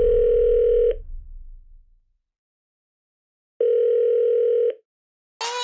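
Telephone ringback tone heard by the caller: a steady single-pitch tone about a second long, sounding twice with a gap of about two and a half seconds, while the called phone rings at the other end. Music starts just before the end.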